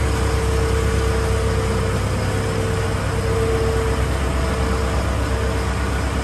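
Large rough-terrain forklift engine running steadily at low revs, with a steady whine over it that swells and fades, as it holds a dyno roller on its boom.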